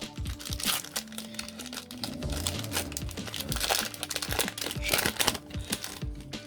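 Foil booster pack wrapper crinkling and crackling as it is handled and opened by hand, over quiet background music.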